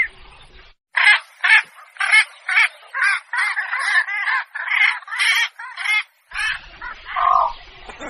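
Calls of the blekok heron played as a hunter's lure recording: a rapid series of short, harsh calls, about two a second, then a single lower call near the end.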